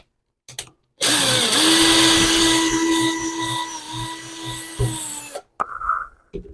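Small rotary tool running with a drill bit in a watchmaker's loupe: a steady motor whine that starts about a second in and cuts off after about four seconds, followed by a few faint clicks.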